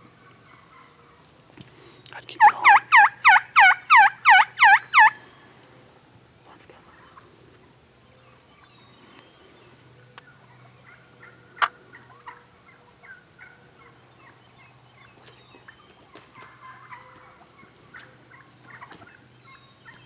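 Turkey yelping: a loud run of about ten quick yelps starting about two seconds in and lasting nearly three seconds, then fainter scattered yelps and clucks. A single sharp click sounds midway.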